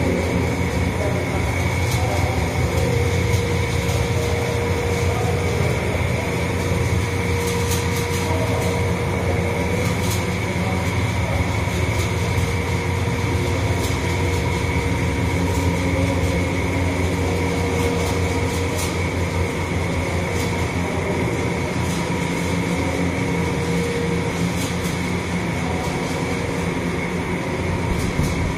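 Steady mechanical drone: a strong low hum with a couple of thin, steady whining tones above it, running without a break, with a few faint ticks.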